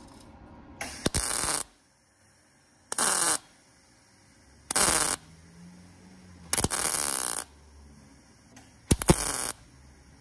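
MIG welder laying short tack welds on thin sheet-steel body panel: five separate bursts of arc, each under a second long, about two seconds apart.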